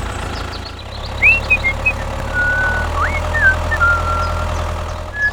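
Steady low engine hum, like a small vehicle idling, with a string of short high chirping whistles over it.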